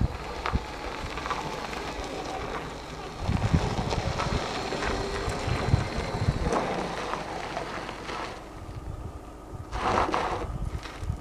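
Wind buffeting the microphone, with gusty low rumbles that come and go, and a short louder burst of noise near the end.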